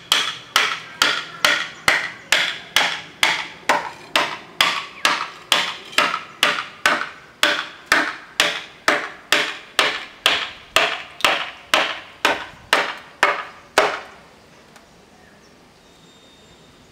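Hammer blows driving a carving chisel into a large wooden log, a steady run of sharp strikes with a short ring, about two a second. They stop a few seconds before the end.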